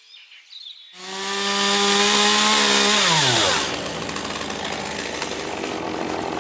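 Chainsaw starting about a second in and running at full throttle, its engine note dropping sharply as the throttle is released about three seconds in, followed by a steady rushing noise.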